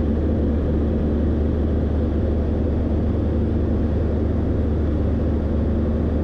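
Ultralight aircraft's engine and propeller droning steadily in cruise, heard inside the cockpit with airflow noise over the cabin.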